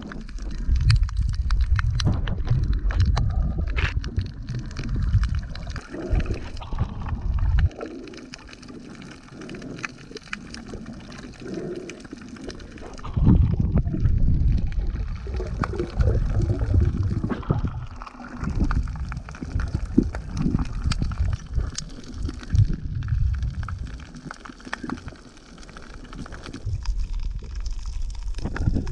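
Water sloshing and gurgling close to the microphone, in uneven surges with a quieter stretch early in the middle.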